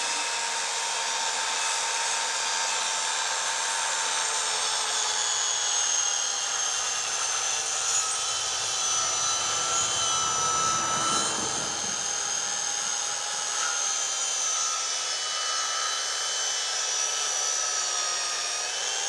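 Circular saw running steadily as it rip-cuts a pine board lengthwise, a steady whine that dips slightly in pitch under load about halfway through, with the rasp of the blade in the wood.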